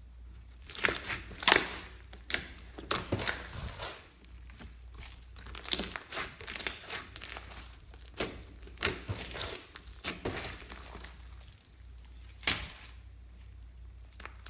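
Slime being squeezed and stretched by hand, giving irregular sticky crackles and pops in uneven bursts.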